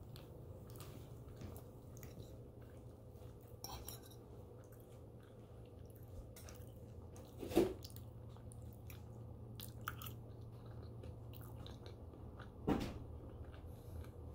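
Close-miked chewing of a mouthful of breakfast food, with many small wet mouth clicks and two louder short sounds, about seven and a half and twelve and a half seconds in.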